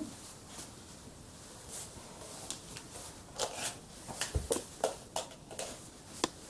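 Light clicks and taps of plastic toy dishes and pretend food being handled. There are a few at first, and they come thicker and more often in the second half.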